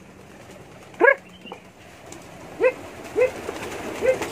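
A dog barking in short, sharp yaps, about one a second.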